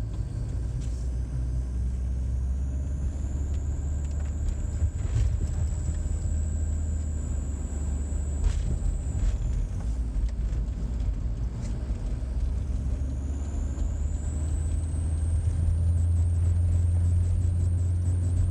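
A 1993 Mitsubishi Delica van heard from the cab while driving, with a weird high-pitched whine over the low rumble of engine and road. The whine comes in when the van accelerates: it rises, holds steady, falls away about halfway through, then rises and holds again near the end.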